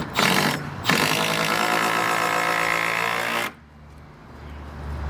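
Power drill running: two short bursts, then a steady run of about two and a half seconds that stops suddenly, as when driving a screw to fasten wooden blocking to a gate post.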